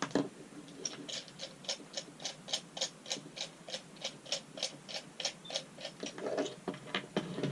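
Steady ratcheting clicks, about three a second, as the power strip's desk clamp is tightened, followed by a few knocks of handling near the end.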